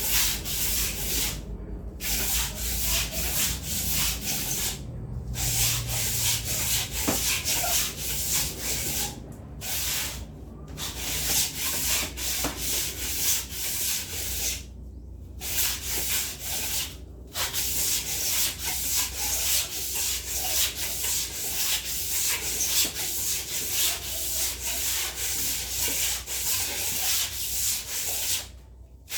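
Brisk, rhythmic brushing strokes against a surface, a long run of quick back-and-forth scrubs that stops briefly several times.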